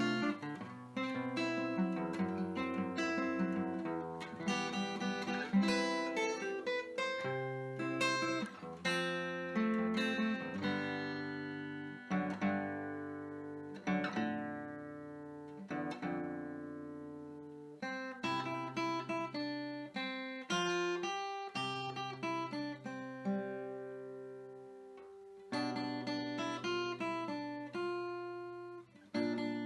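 Background music: plucked acoustic guitar playing a slow melody over held bass notes.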